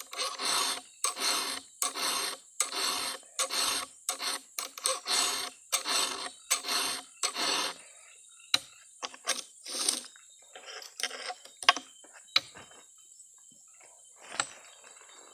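Round file rasping across the cutters of a Stihl 070 chainsaw chain in regular strokes, about two a second. About eight seconds in, the strokes turn sparse and softer, with a few clicks.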